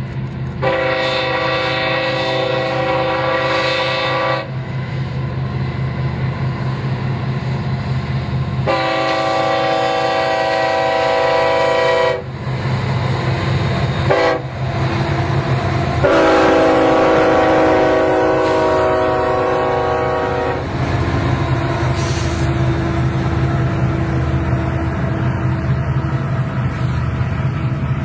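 Train horn sounding three long blasts with a brief toot between the second and third, over the steady rumble of a running train.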